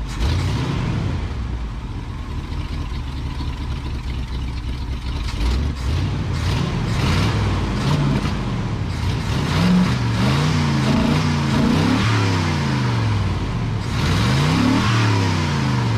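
A vehicle's engine accelerating on the road, its pitch climbing and dropping back several times as it shifts up through the gears, over steady road noise.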